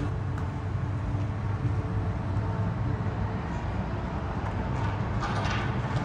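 A vehicle engine running with a steady low rumble, and a brief higher sound near the end.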